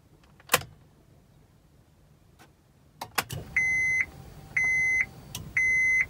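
A Honda Pilot's ignition key is turned to on with a couple of clicks about three seconds in. The in-tank electric fuel pump then runs with a low steady hum, priming, which shows the pump is energizing. Over it the dashboard warning chime beeps three times, about a second apart. A single sharp click comes about half a second in.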